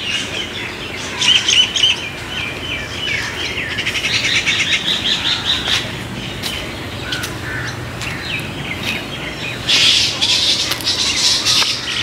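Birds chirping and singing, with quick runs of high notes through the first half and a louder burst of calls near the end.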